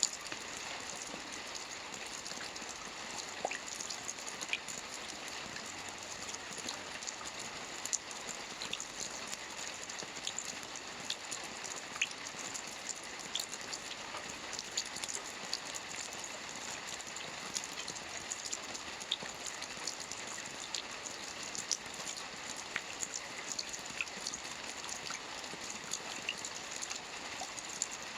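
Steady gentle rain: an even hiss with scattered sharp drop ticks throughout.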